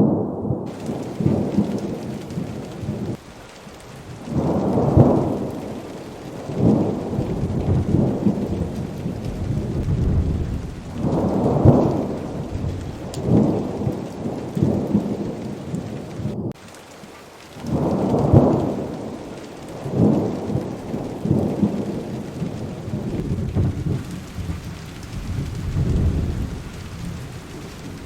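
Heavy rain with low rolls of thunder that swell and fade every few seconds.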